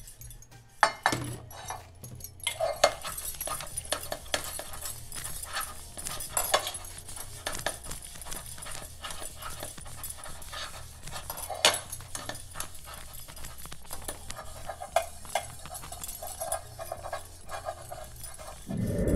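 Green scouring pad scrubbing grime off the inside and rim of a stainless-steel pot: a continuous back-and-forth rasping, broken by sharp clicks and knocks of metal and bangles against the pot, with a few short squeaks.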